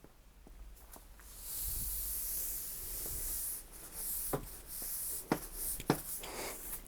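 Sweeping debris across a lab floor or bench: a rushing, brushing hiss for about two seconds, then a few sharp knocks.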